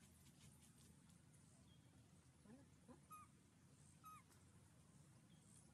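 Faint, short squeaky calls of a young monkey, the clearest two about a second apart in the middle, over a quiet background.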